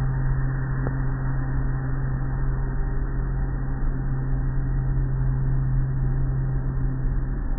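Tunnel car wash machinery and water heard from inside the car: a steady low hum under a constant hiss of noise. The hum fades near the end.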